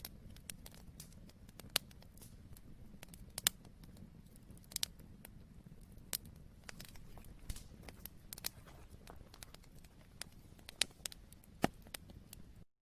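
Faint low background hum with sharp clicks and crackles scattered at irregular intervals, a dozen or more, the strongest about two, three and a half and eleven and a half seconds in; it cuts off abruptly near the end.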